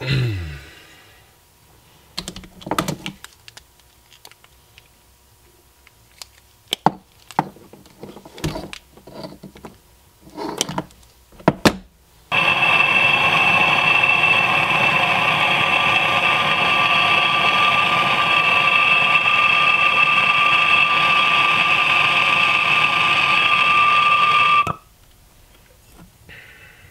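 Handheld propane torch on a blue cylinder burning with a steady hissing rush and a thin whistle. It starts suddenly about twelve seconds in and stops suddenly after about twelve seconds, as it is used to shrink heat-shrink tubing over soldered wire splices. Before it come scattered light clicks and taps of wires and tools being handled on the bench.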